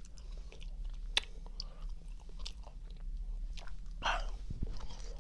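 A person chewing magnesium gummies close to the microphone: soft, scattered mouth clicks, with a short breathy sound about four seconds in.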